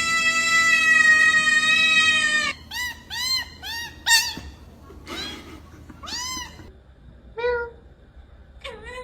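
A cat holding one long, steady high-pitched call that cuts off abruptly, then a run of short meows, each rising and falling in pitch, the loudest near the middle.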